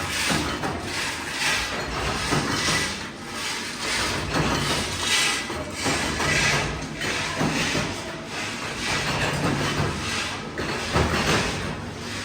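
Metalworking factory machinery running, with a repeating clatter and hiss about once a second over a low hum.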